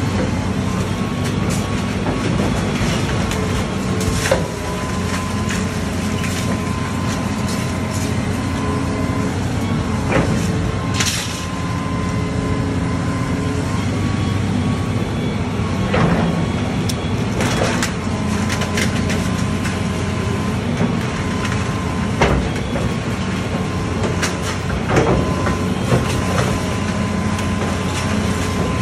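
Hitachi hydraulic excavator's diesel engine running steadily under load, with a steady high whine, while it tears into a house; breaking wood and debris crack and crash about half a dozen times.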